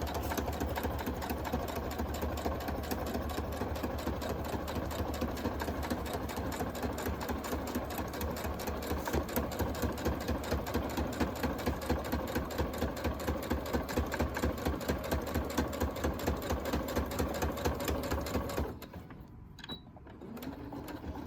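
Sewing machine running at a steady, rapid stitching rhythm as it sews a seam through faux leather. It stops abruptly a couple of seconds before the end.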